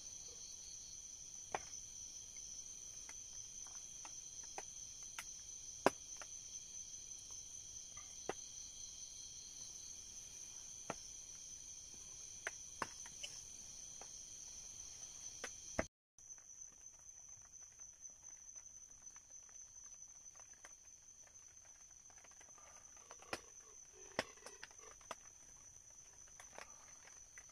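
Night insect chorus: a steady, high-pitched pulsing trill of many insects that keeps up all night. Scattered sharp clicks come and go over it, and the sound drops out for an instant about two-thirds of the way through.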